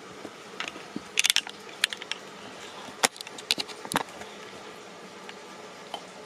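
A husky chewing and crunching a hollow Easter egg, a quick run of sharp cracks and clicks over the first four seconds, then only a few faint ones.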